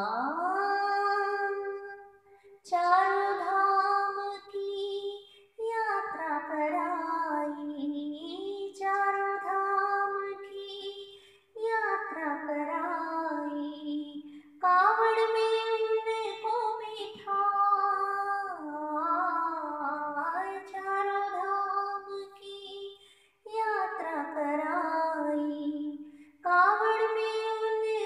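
A woman singing a Jain devotional song (bhajan), in sung phrases with short pauses between them.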